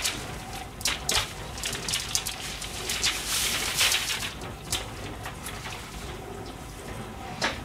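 Newspaper sheets rustling and crinkling as they are unfolded, shaken out and spread flat on a counter, in irregular spells.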